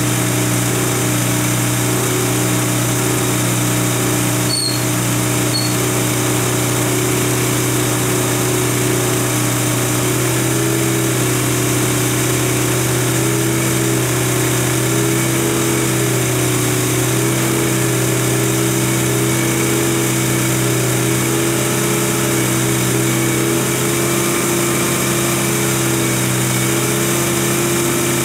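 Chevrolet small-block V8 in a C3 Corvette idling steadily while cold, running on its electric choke as the choke plate warms and opens.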